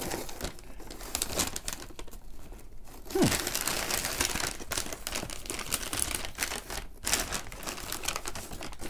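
Newspaper packing rustling and crinkling as it is unfolded and pulled away by hand, with a short falling squeak about three seconds in.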